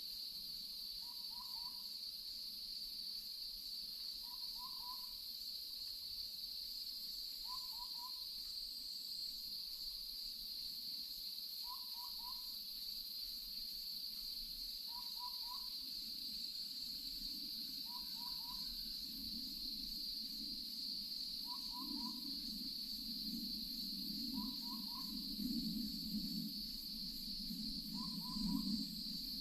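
Nature ambience: a small owl's short two-note hoot repeats about every three to four seconds over a steady high-pitched drone. A low rumble rises in the second half.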